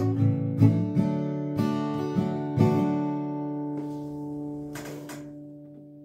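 Acoustic guitar with a capo, strummed a few times, then a last chord left to ring and fade away, ending the song. A brief rustle about five seconds in.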